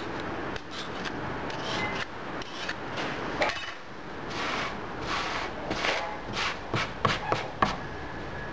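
Metal mould box and a steel scraper working through green foundry sand on a board: a series of short rough scrapes, about two a second in the second half, with a few sharp knocks of metal near the end.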